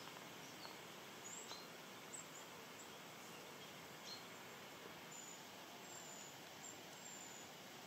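Faint outdoor ambience: a steady low hiss with scattered short, high chirps from small birds.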